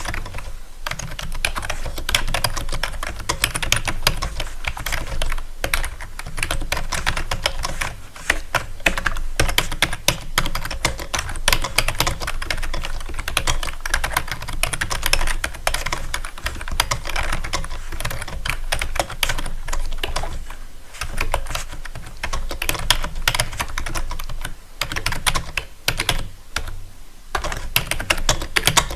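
Rapid, continuous clicking and tapping, with short pauses about 21 and 27 seconds in.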